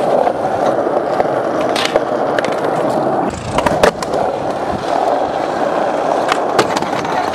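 Skateboard wheels rolling steadily over smooth skatepark ground, with a brief break a little past three seconds in. A few sharp clacks come around the middle and again near the end.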